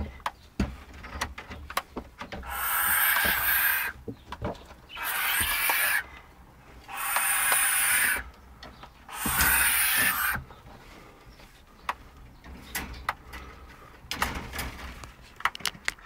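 Barn owl hissing defensively: four long hisses of about a second or more each, a couple of seconds apart, with a weaker one near the end. Scattered clicks and knocks sound between the hisses.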